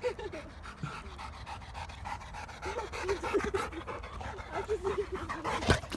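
Labrador retriever panting in quick, rhythmic breaths, out of breath from running. A single sharp knock sounds near the end.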